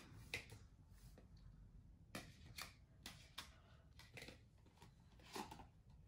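Faint, scattered clicks and light knocks of plastic stacking rings being handled, about a dozen in all over otherwise near silence.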